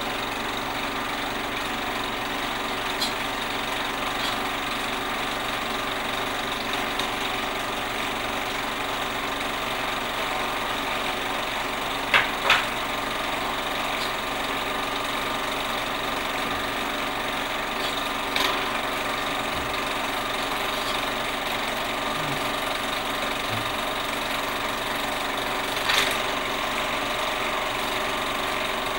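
A small machine running with a steady whirr and hum, broken by a few sharp clicks, the loudest a pair about twelve seconds in.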